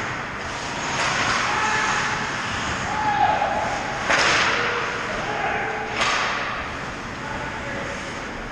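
Ice hockey play in an indoor rink: skate blades scraping the ice and three sharp sudden hits, about a second, four seconds and six seconds in, each trailing off in the rink's echo. A short shout comes near three seconds.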